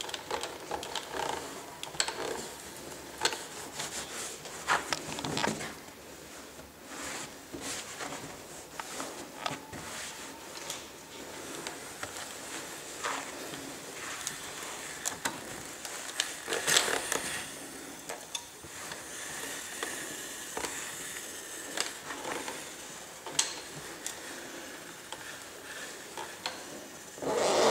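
Steam iron sliding and pressing over cotton fabric, with fabric rustling under the hand and scattered knocks, the loudest about 17 seconds in and near the end.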